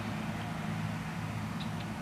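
John Deere 8R-series tractor's diesel engine running steadily under load as it pulls a ripper bedder through the soil: an even, low drone.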